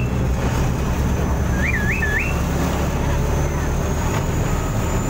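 Chao Phraya Express boat's engine running with a steady low drone while docking, and three quick signal-whistle blasts about two seconds in: the crew's whistle code telling the helmsman how to bring the boat alongside the pier.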